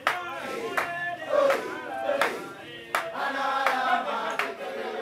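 A group of voices singing or chanting together, with a sharp beat about every three-quarters of a second.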